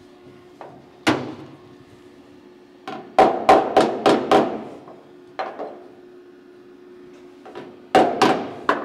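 Hammer tapping the ute's replacement steel roof gutter up into line: one knock about a second in, a quick run of five ringing taps about three seconds in, then a lighter tap and two more near the end. The taps are setting the new gutter section straight against the roof before it is tack-welded.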